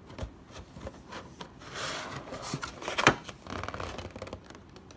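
A clear plastic packaging tray rubbing and scraping as an oversized trading card is worked loose from it. There are small clicks throughout and one sharp plastic click about three seconds in.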